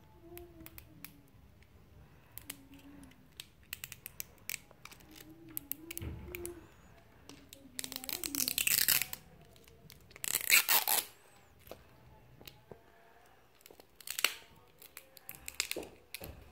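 Thin plastic shrink-wrap being picked at and peeled off a plastic toy ball: steady crackling and crinkling of the film, with several louder rips, the biggest about halfway through and a couple of seconds later.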